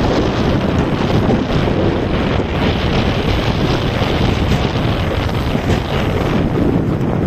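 Wind buffeting the phone's microphone while it travels at speed along the road: a loud, steady rumbling rush with no break.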